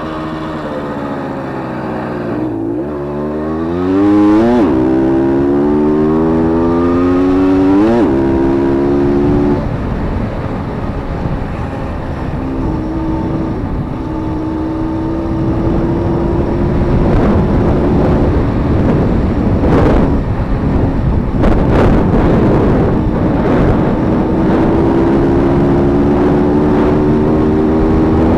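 A 1976 Jawa 50 type 21 Sport's two-stroke single-cylinder engine heard from on board while riding. It pulls up through the gears, its pitch climbing and then dropping at each shift about two and a half, four and a half and eight seconds in. It then runs at a steady cruising pitch that rises slowly again near the end.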